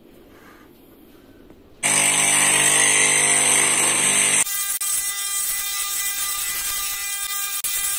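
Small thin cutting disc on a motor-driven spindle running and cutting a hand-held strip of wood. It starts loudly with a high whine about two seconds in, then changes abruptly to a steadier running hum a little past the middle.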